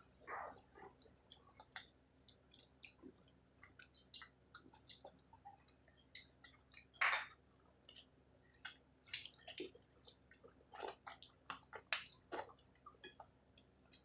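Close-miked eating sounds: a person chewing a meal of rice, dal and curry, with many short wet smacks and squishing clicks. The loudest smack comes about halfway through.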